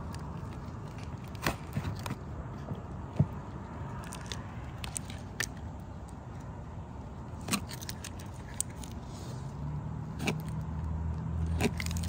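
Scattered light clicks and taps of hand work with tools and materials, with a low engine hum coming up in the last couple of seconds.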